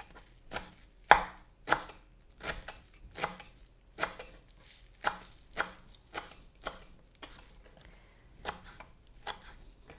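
Knife chopping fresh basil leaves on a wooden chopping board: separate sharp taps of the blade striking the wood, irregular, about one or two a second.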